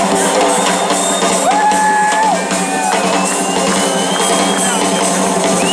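Live southern rock band holding a sustained chord, drum kit playing and long held lead guitar notes sliding above; the band stops near the end, as at the close of a song.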